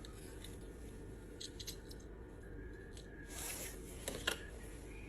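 Faint scraping with a few light ticks, then two sharp little clicks near the end: hand work with tools on a phone screen.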